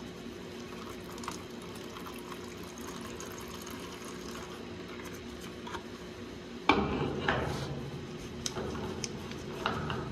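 Hand-handling noise from fitting a Westwood spin-on oil filter cartridge onto a heating-oil tank's filter head: faint rubbing and light clicks, then a sudden knock about seven seconds in, followed by scraping and a few sharp clicks.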